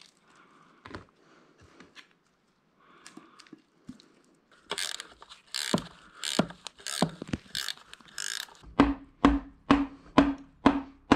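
Hand ratchet wrench run down on the bolts of an NP435 transmission housing: a regular series of ratcheting strokes, about two a second, starting about halfway in and growing louder, after a few quieter clicks and scrapes of parts being handled.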